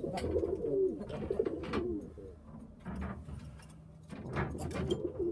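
Pigeons cooing in a loft, the coos coming in the first couple of seconds and again near the end, with a few light knocks or scrapes in between.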